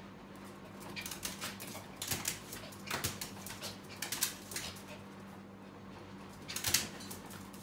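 A small Maltese dog jumping up against a metal fridge door: claws scrabbling and paws knocking on the door and the wooden floor, in clusters of scrapes and taps from about a second in to four and a half seconds, and again, loudest, near the end.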